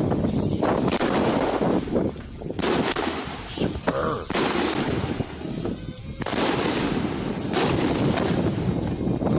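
25-shot Thunder King 1.3G salute cake firing: shells launching one after another and bursting as sharp salute reports in rapid succession, thinning out for a couple of seconds in the middle before a dense run of reports near the end.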